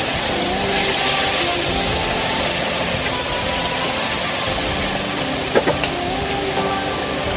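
Onions, garlic and tomatoes sizzling steadily in hot oil in a non-stick wok while a wooden spatula stirs them, with one sharp knock of the spatula against the pan about five and a half seconds in.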